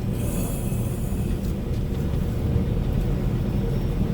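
Kenworth semi truck's diesel engine running steadily as the rig creeps into a fuel lane, with a short high hiss in the first half-second.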